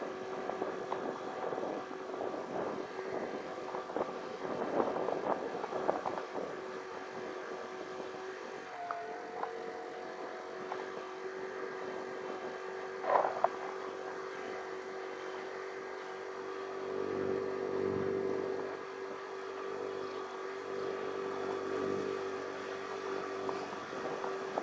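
Motor scooter engine running at a steady pitch, with scattered rattles and knocks as it rides over a rough, broken road. One sharp, loud clack about halfway through.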